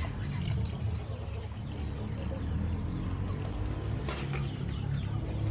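Coconut milk being poured from one metal pot into another pot of liquid, over a low steady rumble.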